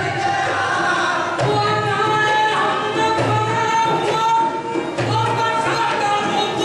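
Qawwali: a sung Sufi devotional kalam with hand-drum accompaniment, the voice held on long notes over recurring low drum strokes.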